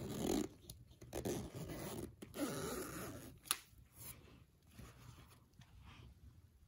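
Zipper on a soft pet carrier's mesh door being pulled open in three rasping strokes, with a sharp click about three and a half seconds in.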